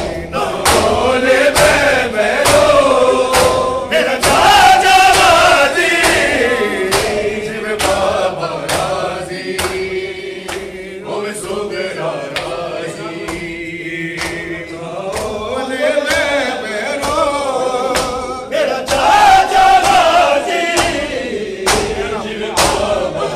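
A crowd of men chanting a noha together in unison to the beat of matam. Open hands strike bare chests in a steady rhythm of sharp slaps, nearly two a second.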